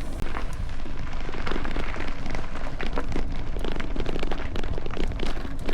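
Wind buffeting the microphone of a camera riding on a moving bicycle: a steady low rumble with many small clicks and rattles from the ride.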